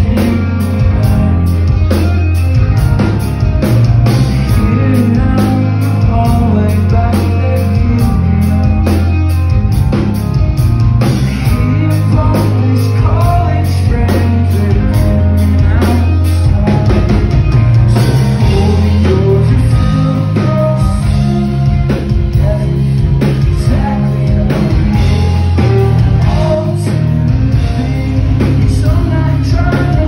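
Live rock band playing loud: electric guitars, a drum kit beating steadily and sung vocals, heard from within the crowd.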